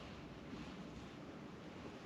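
Steady wind noise on the microphone: an even rush with no distinct events.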